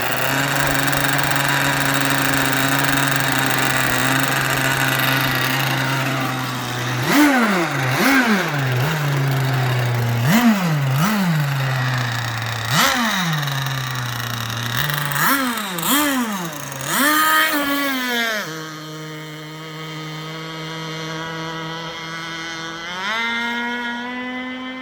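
Small RC hydroplane boat engine running at a steady high idle, then revved hard about nine times in quick succession, each blip rising sharply toward about 18,000 rpm and falling back. It then settles to a lower idle and picks up slightly near the end.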